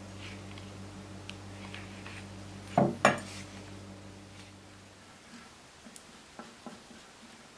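N690 stainless steel knife blank set down on a wooden workbench: two sharp metallic knocks close together about three seconds in, over a steady low hum that stops about five seconds in. Faint small ticks follow as a wooden stick stirs a thick black paste.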